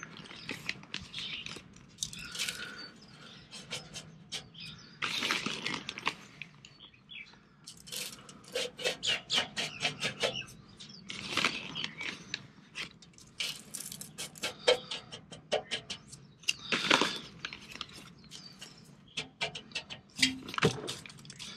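Dry apple wood smoke chips sprinkled and spread by hand on aluminium foil in a smoker pan: irregular light pattering and crinkling, with a few louder rustling handfuls.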